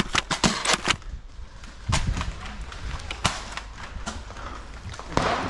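Irregular sharp clicks and knocks: several close together in the first second, then single ones about two, three and five seconds in.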